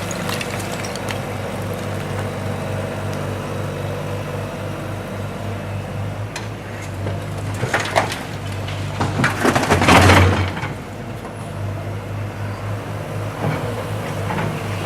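Diesel loader engine running steadily, with a few short knocks about six and eight seconds in. Around ten seconds in comes a loud crash of debris lasting about a second and a half, the loudest moment.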